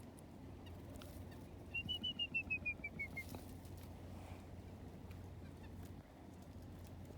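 A wild bird calling: a quick run of about a dozen short, high notes that fall slightly in pitch and last about a second and a half.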